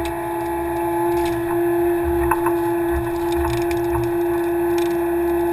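Kubota KX080 excavator's diesel engine and hydraulics running steadily under work, a strong steady whine over a low rumble that swells and eases, with a few light knocks as the bucket and thumb work brush and stumps.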